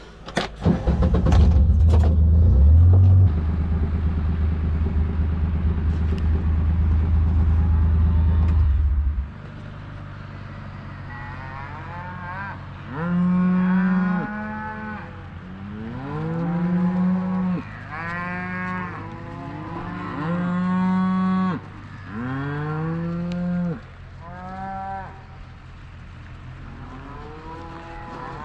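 A vehicle engine running steadily, the loudest sound, stopping abruptly about nine seconds in. After it come cattle mooing: about eight long calls one after another.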